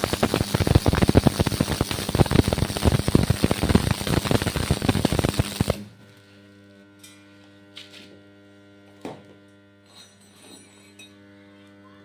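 Stick welding arc crackling steadily, then cutting off abruptly about halfway through as the arc is broken. A steady electrical hum and a few faint clicks remain after it.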